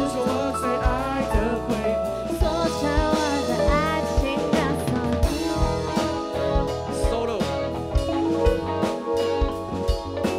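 Live pop band playing: a drum kit keeps a steady beat with snare hits under electric guitar chords, with a singer's wordless sung runs over the first few seconds.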